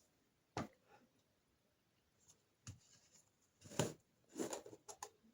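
Faint, scattered clicks and knocks of kitchen items being handled, with near silence between them; the loudest comes a little under four seconds in, followed by a quick run of small clicks.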